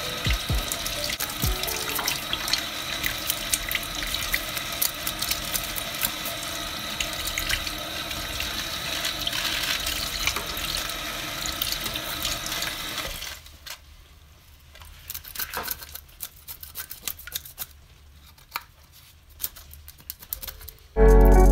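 Tap water running steadily into a stainless steel sink over a fish while a knife scrapes off its scales in many small scratchy clicks. About 13 seconds in the water stops, leaving only scattered scrapes of the knife, and background music comes in loudly just before the end.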